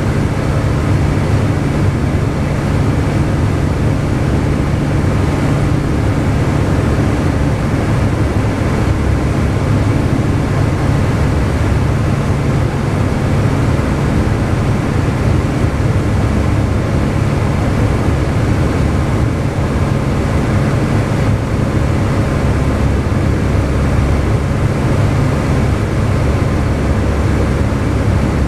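Single-engine light airplane's engine and propeller running steadily, heard inside the cockpit as a constant low hum.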